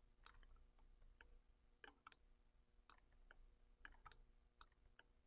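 Faint, irregular clicking of a computer mouse, about a dozen clicks, over a faint steady hum.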